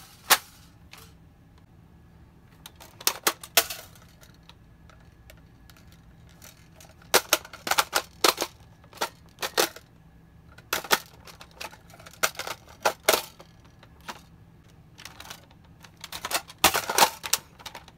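Hard plastic clicks and clacks of Nerf blasters being reloaded, including a Nerf Stryfe: magazines pulled out and pushed home and mechanisms worked, in quick clusters of sharp clicks separated by quiet pauses.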